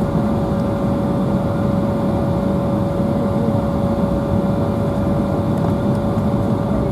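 Steady cabin noise inside an Embraer 175 jet on the ground before takeoff: a constant low hum with a steady, even whine running through it.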